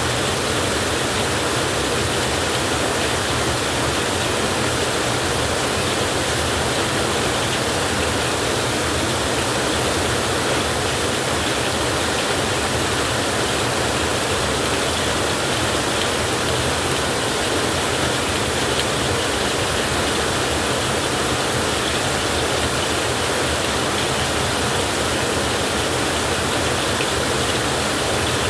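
Heavy rain pouring down steadily, a dense even hiss with no thunder or other breaks.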